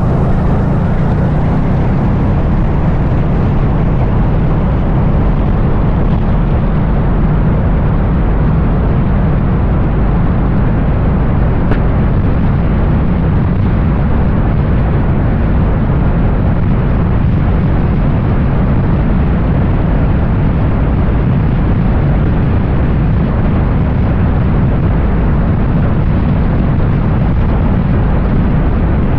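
Keeway Buccaneer 250i motorcycle riding at steady road speed: engine running with a strong, steady wind rumble on the microphone.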